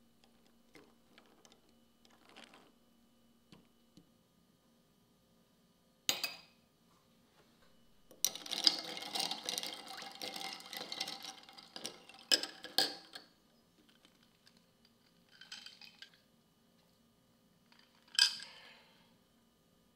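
Glass straw stirring ice cubes in a glass mug of iced milk tea: a dense clinking and rattling for about five seconds, ending in a couple of sharp clinks. Single sharp glass clinks come before and after it.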